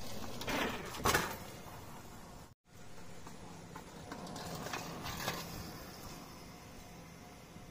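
A child's bicycle rolling on rough concrete, with a sharp knock about a second in.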